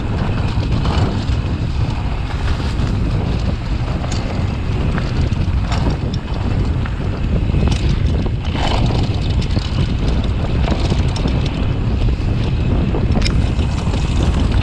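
Wind buffeting an action camera's microphone on a fast mountain bike descent, over a steady rumble of knobby tyres on a dry dirt trail. A few sharp clicks from the bike come as it runs over rough ground.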